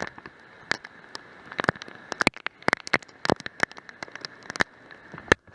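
Steady rain hiss with irregular sharp taps of raindrops striking the wet camera and its microphone directly.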